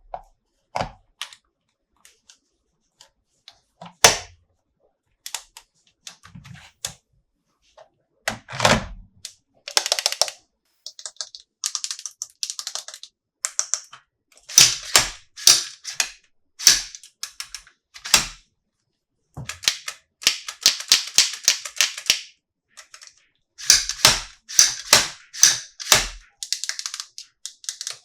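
Hands handling plastic toy figures and their packaging: an irregular string of sharp clicks and taps with some rustling, and quick runs of rapid ticking in the second half.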